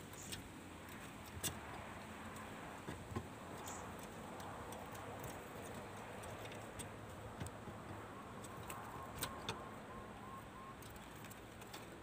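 Faint steady background hiss with a few scattered sharp clicks, the loudest about one and a half seconds in and two close together about three quarters of the way through. Near the end comes a faint run of about seven short, high, evenly spaced notes. There is no cooing.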